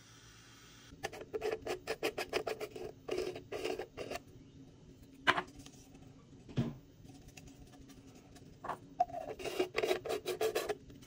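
3D-printed plastic parts of a stash container rasping against each other in two runs of short scraping strokes as the end cap and body are turned and fitted together, with a single sharp click and a dull knock in between.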